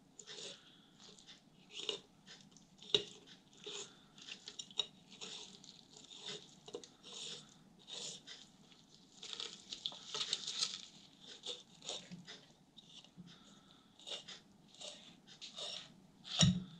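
Fillet knife cutting a corvina fillet free along the skeleton, crackling and scraping irregularly as the blade passes over the fish's small bones. A sharper tick comes about three seconds in, and a dull thump near the end.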